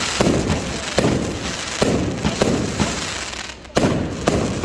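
Fireworks going off: a rapid run of sharp bangs, roughly two a second, over continuous crackling.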